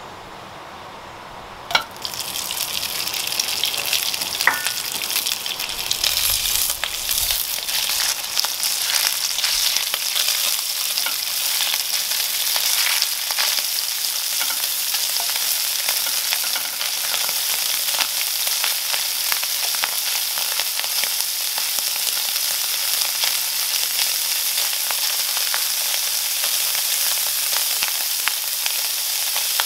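Minced beef sizzling as it fries in hot clarified butter in a nonstick pan, stirred and pushed around with a wooden spoon. The sizzling starts with a sharp tap about two seconds in, as the meat goes into the pan, and then holds steady.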